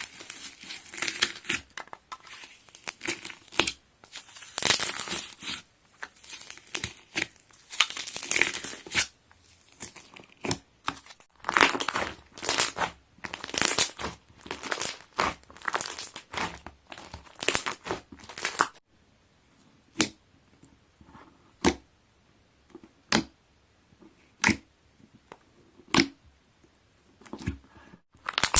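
Slime being worked by hand, with crackling air-bubble pops in dense runs. In the last third, single sharp pops come about every second and a half.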